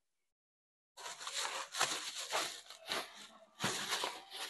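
Plastic packaging wrap rustling and crinkling as it is pulled and handled out of a cardboard box, starting about a second in after silence.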